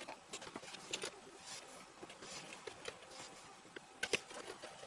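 Faint scattered clicks and scrapes of small metal parts being handled as nuts and knobs are worked loose from the front panel of a Moog Mother-32 synthesizer. There is a sharper click at the start and another about four seconds in.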